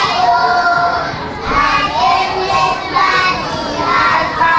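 A group of young children's voices raised together in a Christmas performance, with pitched notes held for up to about a second, as in singing.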